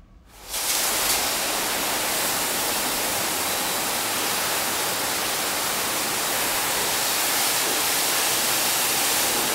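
Automatic car wash's high-pressure water jets spraying over a pickup truck: a steady, dense hiss of water that starts abruptly about half a second in.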